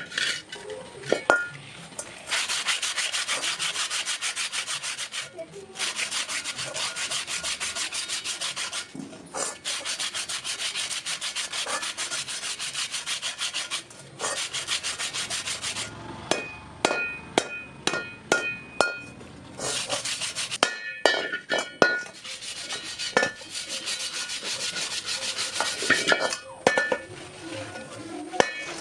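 Rapid abrasive scraping or rubbing on metal in several long bursts of a few seconds each, broken by sharp metallic clinks and taps that ring briefly.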